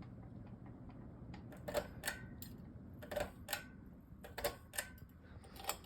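Harbor Breeze Dubois ceiling fan running on high speed, a faint steady whoosh of motor and moving air, with scattered light ticks and clicks at uneven intervals.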